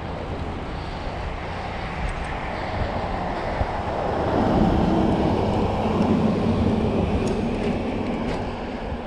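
Road traffic heard from a moving pedal bike: a steady rumble of vehicles, with one vehicle's engine growing louder and passing about four to seven seconds in.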